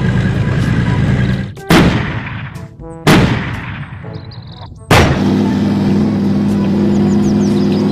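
Main battle tank's engine running with a steady low drone, broken by three loud cannon-like shots about a second and a half apart, each trailing off. The drone carries on after the last shot.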